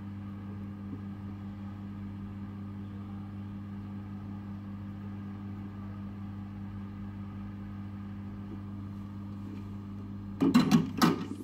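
Steady low electrical hum at the repair bench, then a quick cluster of sharp clicks and knocks about ten seconds in.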